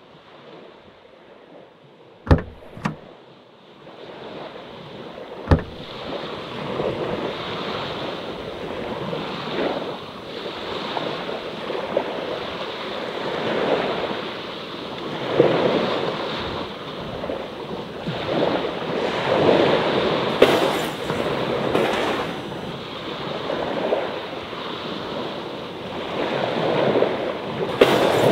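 Small sea waves washing in on the shore, swelling and falling every second or two and growing louder after the first few seconds. A few sharp clicks sound in the first six seconds.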